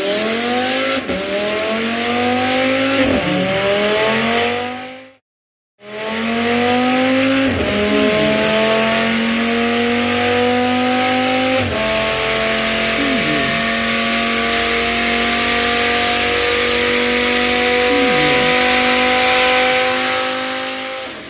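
Racing car engine accelerating hard, its pitch climbing and dropping back at each gear change, fading out about five seconds in. After a short silence a second pass starts: the engine climbs through two more gear changes, then holds a steady high note at speed and begins to fade near the end.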